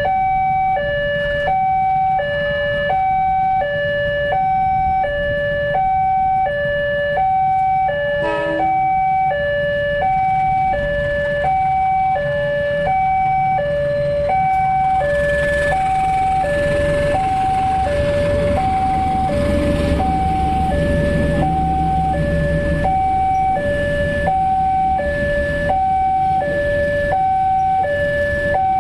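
Railway level-crossing warning alarm: an electronic two-tone signal switching between a high and a low tone, each lasting a little over half a second, repeating steadily. About halfway through, a heavy low rumble and rushing noise swell up and then fade under it: a train passing over the crossing.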